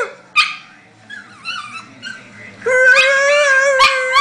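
Chihuahua howling: a short yip about half a second in, some faint wavering whimpers, then a long, steady, high-pitched howl that begins under three seconds in and is still going at the end.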